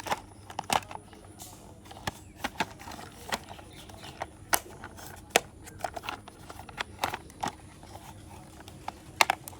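Plastic toy vehicle parts clicking and knocking as a toy van's base is fitted onto its body: scattered sharp clicks and taps at irregular intervals.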